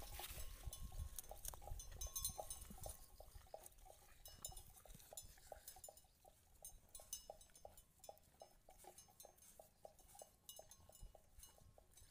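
Calves grazing close by: faint, quick crunching and ticking as they tear and chew leafy plants, a few ticks a second, with a low rumble in the first few seconds.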